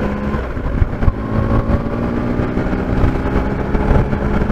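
Triumph Explorer's three-cylinder engine running at a steady cruise, heard from a microphone inside the rider's helmet, over a low rumble of wind noise.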